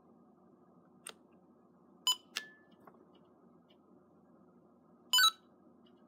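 Homemade Arduino Nano fire alarm panel going through a system reset: a few sharp clicks and short electronic beeps, the loudest a brief beep about five seconds in, over a faint steady hum.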